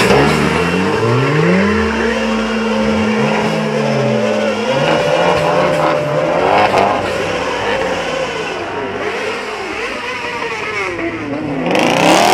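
Car engine revving hard, its pitch climbing and falling again and again and held at high revs for a couple of seconds at a time, with more quick revs near the end.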